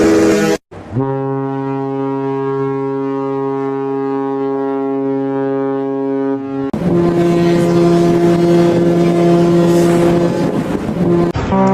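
Ship's horns: a long, steady, deep horn blast of about six seconds, then an abrupt change to a different, higher-pitched horn held steadily over a noisy background.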